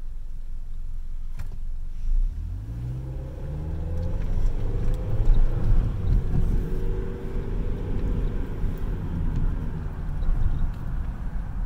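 Car engine accelerating: a low rumble whose pitch rises about two to four seconds in, then runs on steadily.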